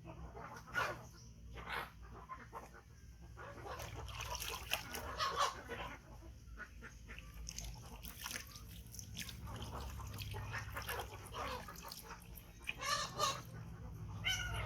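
Baby monkey giving short high squeaks and whimpering calls, loudest near the end, among scattered clicks and rustles of handling.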